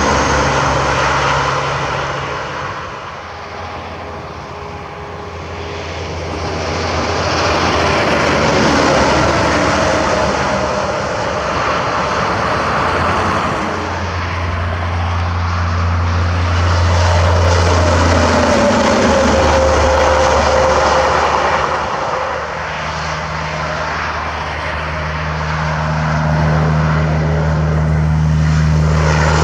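Heavy highway traffic, semi-trucks going by with steady diesel engine drone over tyre and wind rush, swelling and easing as trucks pass.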